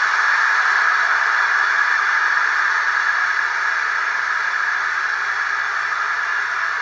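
Large arena crowd applauding, a dense, even wash of clapping, a little louder at the start and easing slightly; heard through a television speaker.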